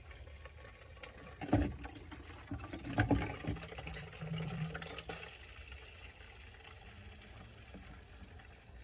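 Garden hose running water into a plastic pump sprayer's tank, a low steady wash, with two sharp knocks about one and a half and three seconds in.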